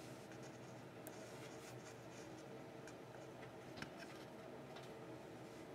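Faint scratching and light ticking of a metal knitting needle spreading glue over a painted stand, with one sharper click a little under four seconds in.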